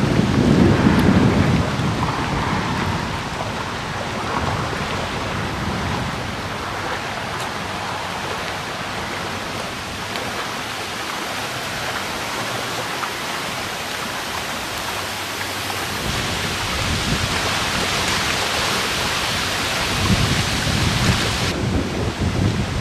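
Severe thunderstorm sounding: a steady hiss of wind and rain, with low rumbling near the start and again near the end.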